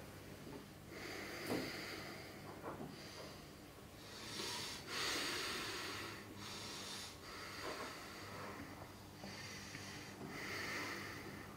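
A man breathing heavily and angrily through his nose, slow drawn-out breaths a few seconds apart.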